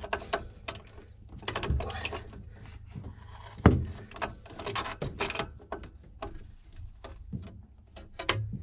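Metal hand tools clicking and clinking in irregular bursts, with one louder knock partway through, as a seized broken stud is worked out of the cast-aluminium housing of a Beta Marine 28HP engine.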